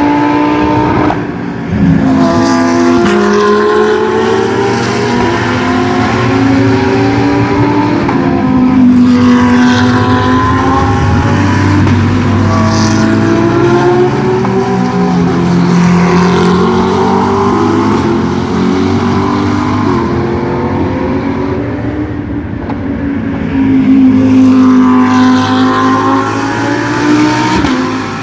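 GT3 race cars at full throttle, several engines heard at once, their notes rising through the gears and dropping at each shift as the cars pass one after another.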